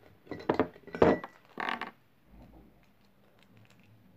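A few short knocks and rustles from a plastic surprise-egg capsule being handled on a wooden tabletop, all within the first two seconds, then only faint sound.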